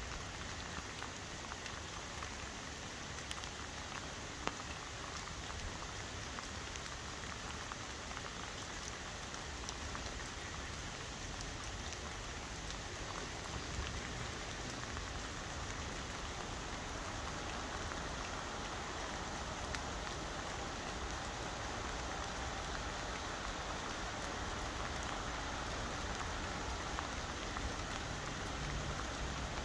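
Steady rain falling, an even hiss with scattered small ticks of drops. A low rumble builds near the end as a distant train approaches.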